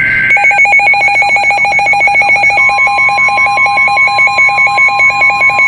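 Emergency alert attention signal: a loud, rapidly pulsing alarm tone at about eight beeps a second, joined about two and a half seconds in by a steady continuous tone. A brief data-burst screech is heard at the very start.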